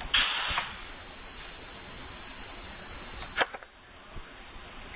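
A short hiss, then a steady high-pitched electronic beep held for about three seconds. It stops with a click, leaving low background noise.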